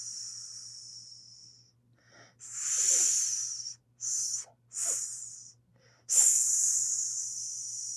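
Snake hissing in a series of separate breathy hisses: one fading out at the start, then a longer hiss, two short quick ones, and a sharp, loud hiss about six seconds in that slowly trails off.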